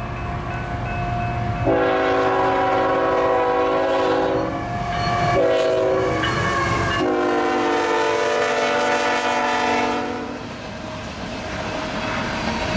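Air horn of a CSX diesel locomotive sounding a multi-note chord in long blasts for a grade crossing, with a brief break about four and a half seconds in, over the rumble of the train. Near the end the horn stops and the rumble and clatter of the passing tank cars on the rails takes over.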